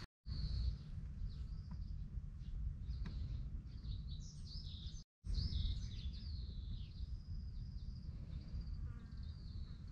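Outdoor ambience of small birds chirping and trilling repeatedly over a steady low rumble. The sound cuts out completely for a moment twice, once at the start and once about halfway through.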